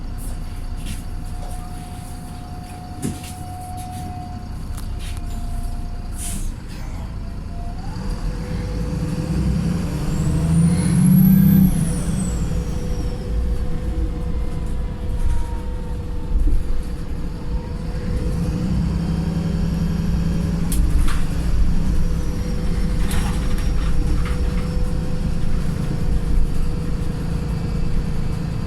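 Wright Pulsar single-deck bus heard from on board: its tired diesel engine runs with a thrashy note, working hardest about ten seconds in while a high whine rises and then falls. Brief sharp releases of air come now and then.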